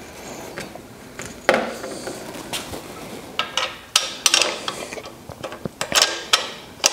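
Irregular metal clicks, knocks and light scraping from a steel reel-mower handle and bracket being shifted while an awl is worked through their holes to line them up.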